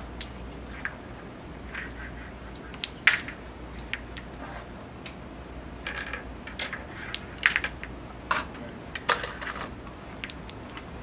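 Wooden crokinole discs clacking: a string of sharp clicks at uneven intervals as discs are flicked across the board and strike other discs, pegs and the rim.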